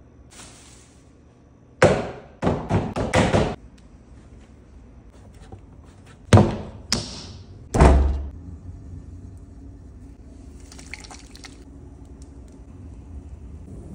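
Heavy thuds of a lump of clay pressed and slapped down on a wooden tabletop while it is wedged: a quick run of about five about two seconds in, then three more around six to eight seconds. After them a pottery wheel runs with a steady low hum.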